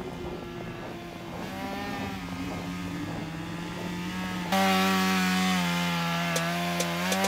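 Two-stroke chainsaw running, first as a quieter steady hum, then suddenly loud about four and a half seconds in as it cuts into lake ice at high revs. The engine note sags and picks up again under the load of the cut.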